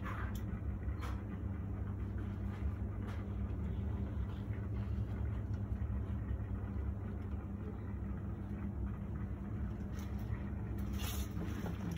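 Steady low machine hum and rumble, with a few faint clicks and a brief rustle near the end.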